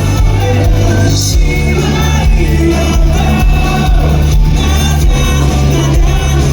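Live rock band playing loudly, with sung vocals over steady drums and a heavy bass, recorded on a phone in a club hall.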